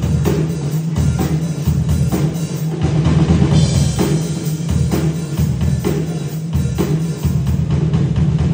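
Yamaha acoustic drum kit played live, a steady groove of bass drum and snare hits, with a brighter cymbal wash about three and a half seconds in.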